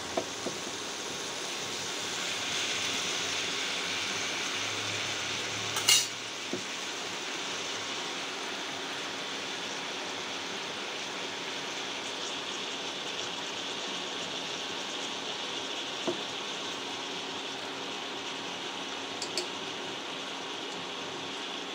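Steady sizzle of eggplant, potato and fresh spinach frying in a pan. A few sharp metal clinks of utensils against the pan stand out, the loudest about six seconds in.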